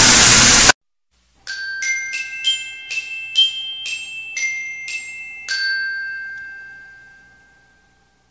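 Loud rock music cuts off abruptly, and after a short silence a glockenspiel-like chime plays a short tune of about ten bright struck notes, the last one ringing out and fading away.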